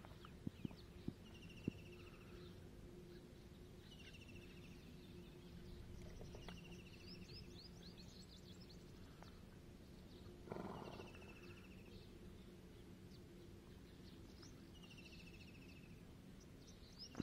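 Faint outdoor ambience: a horse's hooves thud on sandy ground a few times in the first two seconds. A bird repeats a short trilled call every couple of seconds over a steady low hum, with a short rush of noise about ten and a half seconds in.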